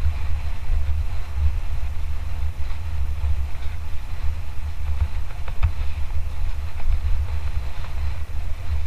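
Wind rumbling on the microphone of a Lapierre Zesty mountain bike riding fast over rough ground, with faint rattles and one sharp knock about five and a half seconds in.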